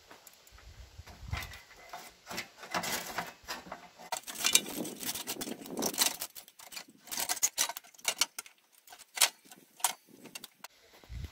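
Irregular metal clinks, knocks and rattles of tractor radiator parts being handled and fitted by hand, busiest in the middle stretch.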